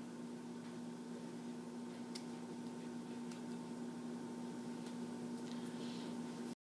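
Steady electrical hum and hiss of room tone with a few faint clicks, then the sound cuts out completely near the end.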